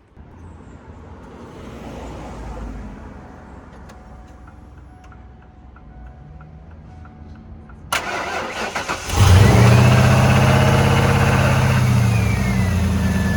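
A vehicle's engine is cranked by the starter about eight seconds in, catches after about a second, and runs fast before settling toward idle. This is the first start after an oil change, with the fresh oil filter not pre-filled.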